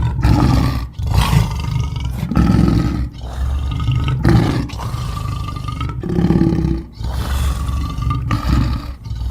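Monster roar sound effects: a string of deep, growling creature roars, each one to two seconds long with short breaks between them.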